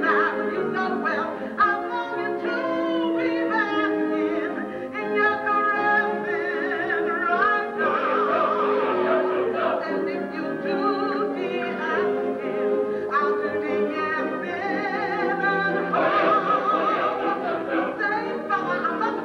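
A show tune sung in a musical: a woman's lead voice with wide vibrato, joined by an ensemble chorus, with musical accompaniment.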